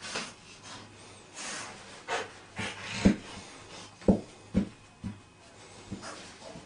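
Dog breathing sounds: a string of short sniffs, snorts and pants, about a dozen spread unevenly, the loudest about three and four seconds in.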